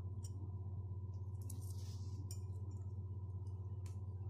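A few faint, light clicks and a brief rustle of plastic beads and pipe pieces being handled as they are threaded onto a needle and thread, over a steady low hum.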